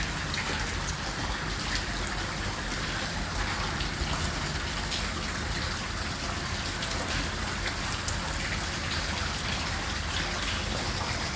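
Steady heavy rain, with many individual drops tapping close by.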